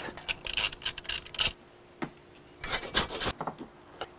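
Ratchet of a socket wrench clicking in two quick bursts as a 10 mm bolt is backed out of a water pump, with light metal clinks.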